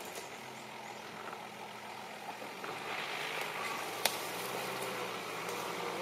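Nissan Patrol 3.3 turbodiesel engine running steadily at low revs as the four-wheel drive crawls through deep dirt ruts. There is a single sharp knock about four seconds in.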